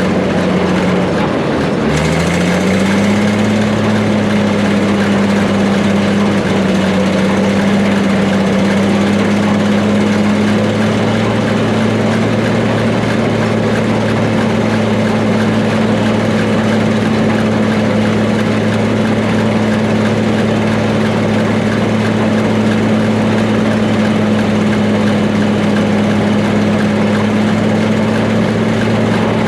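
Gleaner A2 combine running steadily during oat harvest, its engine with the threshing machinery's hum and rattle over it. The engine pitch dips briefly about two seconds in, climbs back up, and then holds steady.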